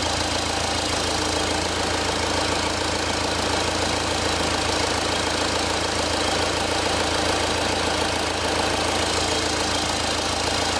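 Four-cylinder common-rail diesel engine idling steadily.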